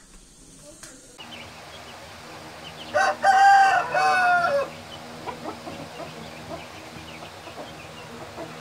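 Aseel game rooster crowing once, about three seconds in: a loud crow of a little under two seconds in three parts, the last part falling away. Faint clucks and a steady low hum sit behind it.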